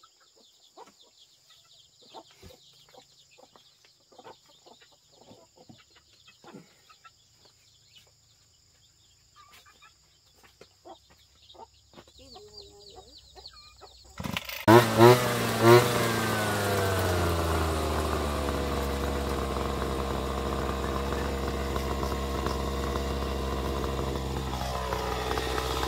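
A petrol brush cutter's small engine starts abruptly about halfway through, with a few loud bangs, revs high and slides down to a steady fast idle. Before it, a faint steady insect drone and a few hen clucks.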